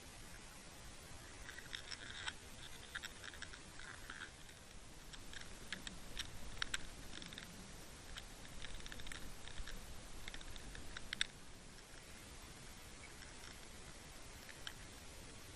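Irregular light clicks and ticks, bunched between about two and eleven seconds in, over a faint low rumble.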